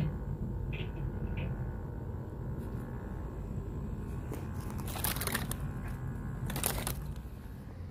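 Steady low rumble of wind on the microphone, with two short rustling handling noises about five and six and a half seconds in.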